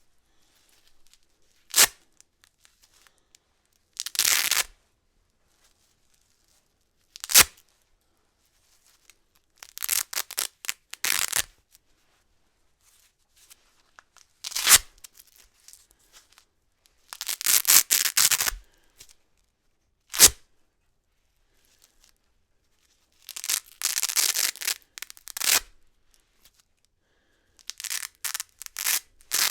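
Hook-and-loop (Velcro) fastener being ripped apart again and again, about nine separate rips with pauses between. Some are quick and sharp, others slower and drawn out into a longer crackling tear.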